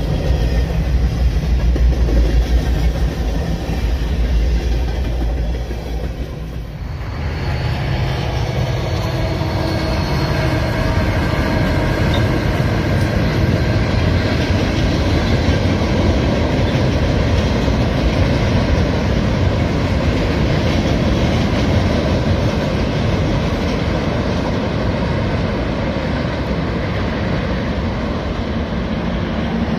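A freight train rolling past, heard from inside a car for the first seven seconds. Then, after a sudden change, CSX four-axle diesel locomotives and their freight cars run steadily across a steel truss bridge.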